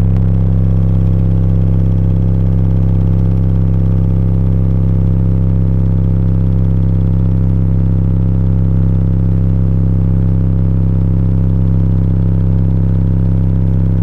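A 33 Hz bass test tone played loud and steady through the car's subwoofers, powered by Ampere amplifiers, while the amplifiers' output voltage and current are measured. It is heard as a constant low drone.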